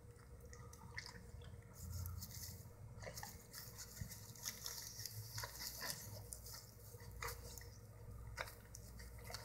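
A pit bull licking and chewing at burger leftovers in a paper wrapper: faint wet mouth clicks and smacks with soft rustling of the wrapper, scattered and irregular.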